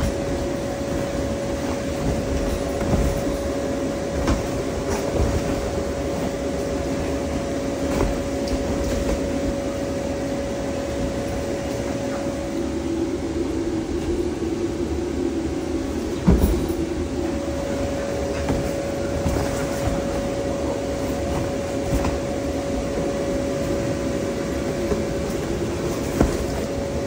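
Bounce house's electric blower fan running with a steady hum, with a few short thumps, the loudest about sixteen seconds in.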